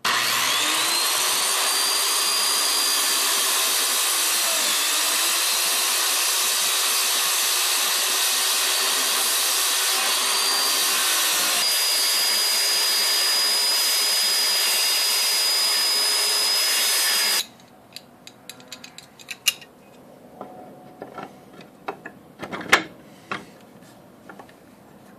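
Handheld circular saw running steadily for about seventeen seconds, spinning up with a rising whine at the start, as it cuts a relief groove for a hand grip into a wooden door slat. It stops abruptly, followed by a few light knocks and taps.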